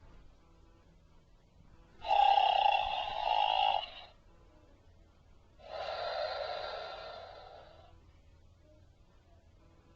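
Recorded snoring played by a toy's small voice box: two long snores, the first louder and cut off sharply about four seconds in, the second swelling and then fading away.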